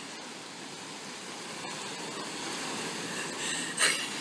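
Steady rush of ocean surf and wind, with a short louder burst of noise near the end.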